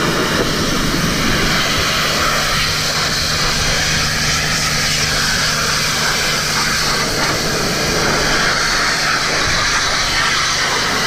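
Pressure washer running continuously, its high-pressure water jet hissing as it sprays down a dirt bike, over a steady low hum from the machine.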